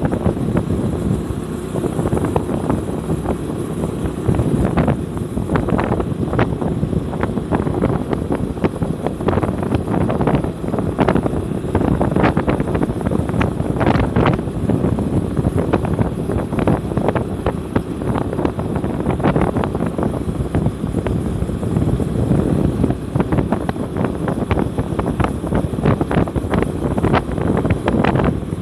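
A vehicle driving steadily along a road, with constant low rumble and wind buffeting the microphone in irregular crackling gusts.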